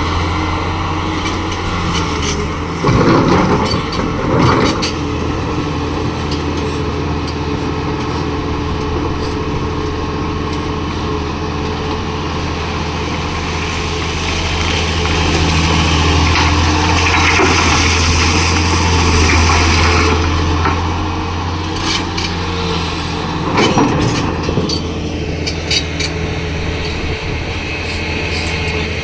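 Heavy diesel earthmoving machinery, an excavator loading a dump truck, running steadily with a deep engine hum that swells under load for a few seconds in the middle. Clattering knocks break in about three and four and a half seconds in and again about twenty-four seconds in, as of earth and rock dropping into the steel dumper body.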